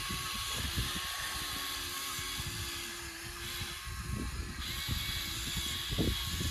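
Small electric motors running with a steady whine over a low, uneven rumble and crackle.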